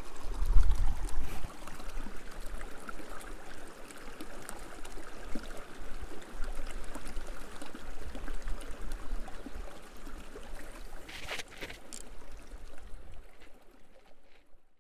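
Mountain river water running over stones, a steady rushing. A low rumble on the microphone is strongest in the first second, a couple of knocks come about eleven seconds in, and the sound fades out near the end.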